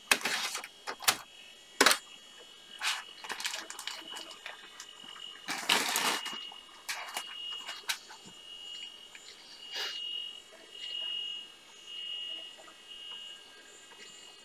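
A floppy disk being handled and clicked into a PC floppy drive, with several sharp clicks and some rustling. From about ten seconds in, the floppy drive reads the disk in short buzzing pulses about a second apart.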